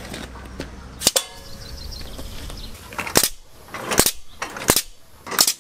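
Pneumatic firing valve of a seven-barrel rotating potato cannon releasing short bursts of compressed air, each one shot-like. There is a single sharp snap about a second in, then four blasts in the second half that come a little faster each time, as the cams on the turning barrels trip the sensor that opens the valve.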